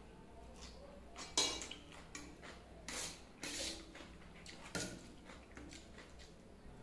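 Metal fork clinking and scraping against a metal plate of noodles in a few short strokes, the loudest about one and a half seconds in, along with chewing.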